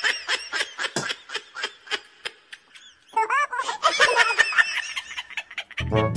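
High-pitched laughter in quick repeated bursts, in two stretches with a short pause about three seconds in. Music starts just before the end.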